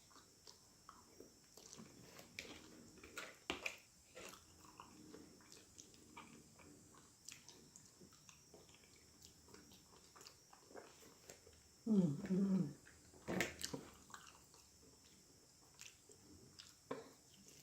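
A person chewing and biting on grilled chicken, with small wet clicks and lip smacks. About twelve seconds in there is a short voiced sound, followed by a sharp smack.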